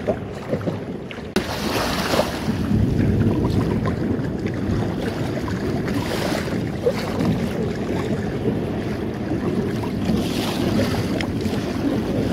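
Water rushing and splashing along the hull of a small Magnum 422 sailboat under way in choppy, current-churned sea, with wind buffeting the microphone. The rush jumps louder about a second in and then holds steady.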